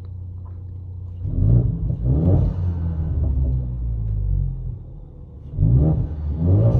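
Ford Mustang EcoBoost 2.3-litre turbocharged four-cylinder heard from inside the cabin, idling and then revved in short throttle blips: two about a second in and two more near the end, dropping back to idle between. It breathes through an exhaust with no mufflers, the resonator still on, and an MBRP 3-inch downpipe with a high-flow cat.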